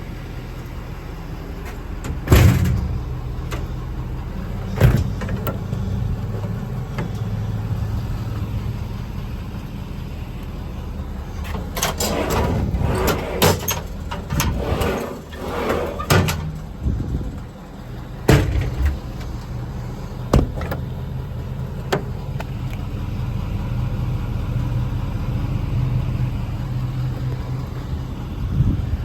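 A 6.7 Power Stroke V8 diesel idling steadily. Over it come several sharp metal knocks, and a run of clanking and rattling about twelve to sixteen seconds in.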